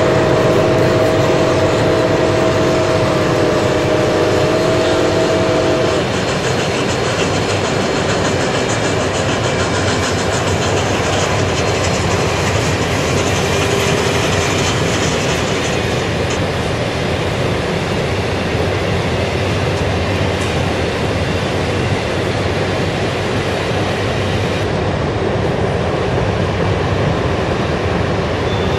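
HO-scale model trains running on a layout: steady running noise of wheels on track and locomotive motors. A held chord of several steady tones sounds for about the first six seconds, then stops.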